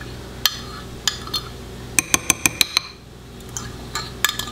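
Metal fork clinking against a glass bowl while thick sour cream is knocked off it. There are a few scattered clinks, then a quick run of about six in under a second, two seconds in, and a few more near the end.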